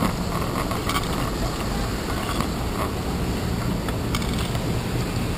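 Bicycle riding through city street traffic, heard from a handlebar-mounted GoPro Hero 2: a steady low rumble of traffic and road noise, with several short sharp rattles from the bike and camera mount over bumps.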